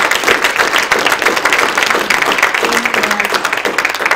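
Audience applauding: many hands clapping in a dense, steady spread of claps.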